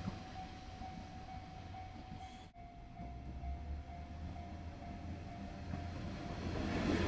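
Japanese railway level-crossing alarm ringing, a steady repeating electronic tone, over the low rumble of a train that grows louder near the end. The sound drops out briefly about two and a half seconds in.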